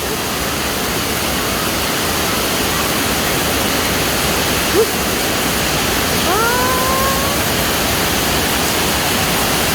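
Storm water rushing steadily with a loud, even roar. About six seconds in there is a short rising call.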